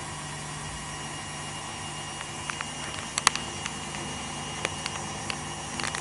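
Ariston washing machine in its spin cycle with an unbalanced load: a steady motor hum and drum whir. From about two seconds in there are a few light clicks and taps, the sharpest a little after three seconds.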